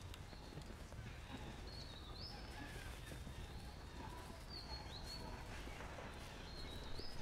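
Faint high-pitched animal calls: three short whistle-like notes that hold a pitch and then step up, a couple of seconds apart, over steady outdoor background noise.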